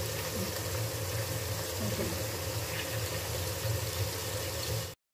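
Steady low hum with hiss from a cooktop running under a pan of curry, with a few faint ticks. The sound cuts off suddenly near the end.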